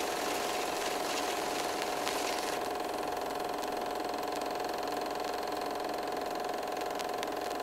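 Old film projector running, a steady mechanical whir with a constant hum and a few faint clicks, as laid under a countdown leader.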